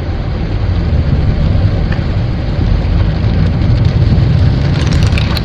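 A low, steady engine-like rumble, with a few faint clicks near the end.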